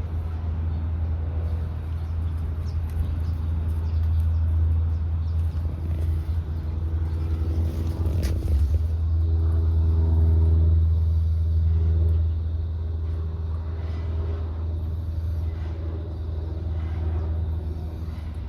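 Strong storm wind buffeting the microphone: a low, steady rumble that swells and eases with the gusts, loudest twice.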